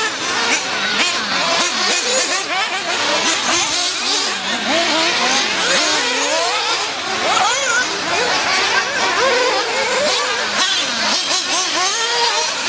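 Several 1/8-scale nitro RC buggies' small two-stroke glow engines screaming at once, their pitches overlapping and rising and falling as they accelerate and lift off around the track.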